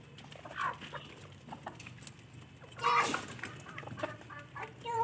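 Chickens clucking intermittently, with a louder, short call about three seconds in.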